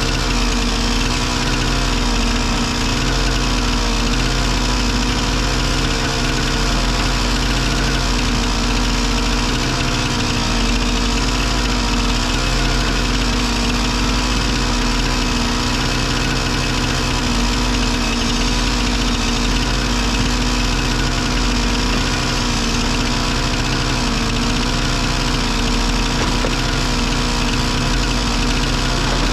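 Excavator's diesel engine running steadily, its note stepping up and down a few times as the hydraulics are worked.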